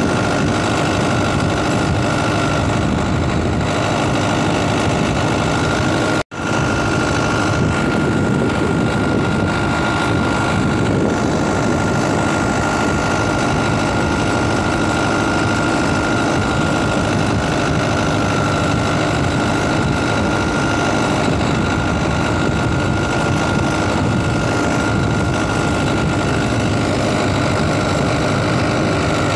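An engine running steadily, with a steady high whine over it; the sound cuts out for an instant about six seconds in, then resumes unchanged.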